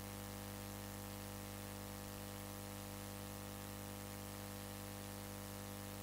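Steady electrical hum over a soft hiss, unchanging throughout, typical of mains hum in a recording or sound-system line with nothing else going on.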